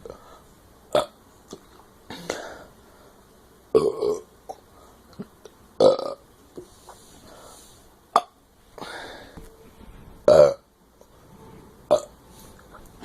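A person burping again and again, about eight burps a second or two apart, some short and some drawn out; the loudest come about four, six and ten seconds in.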